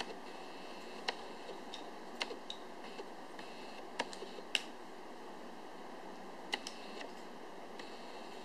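Irregular sharp clicks and taps as small round figure bases and discs are handled and fitted together by hand, over a steady background hiss.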